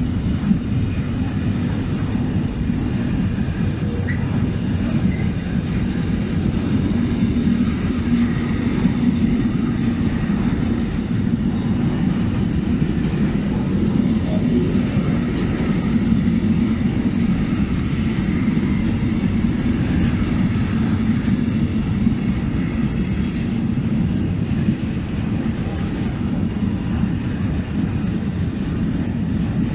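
Intermodal freight train of container and swap-body wagons rolling steadily past: a continuous rumble of wheels on rails.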